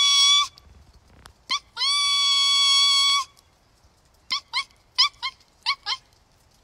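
A person imitating a broad-winged hawk's call: a high, thin whistle that opens with a short rising note and then holds steady for about a second and a half. One call ends just after the start, a full one comes about two seconds in, and a run of short rising squeaks follows.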